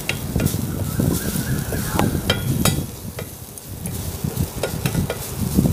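Wooden spatula stirring and scraping a coarse coconut-spice paste around a metal pan, with hot oil sizzling under it: the paste being sautéed after the mustard-seed tempering.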